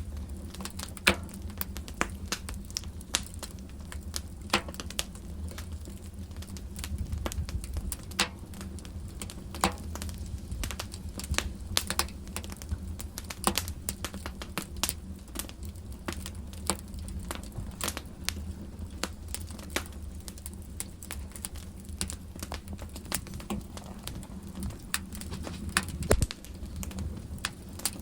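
Wood fire in a fireplace crackling, with sharp, irregular pops over a low, steady rumble.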